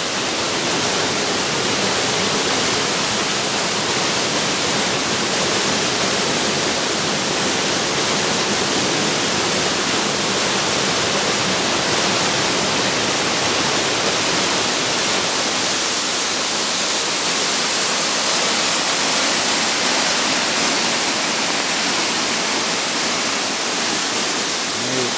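Fast-flowing river rushing steadily: an even wash of water noise that does not change.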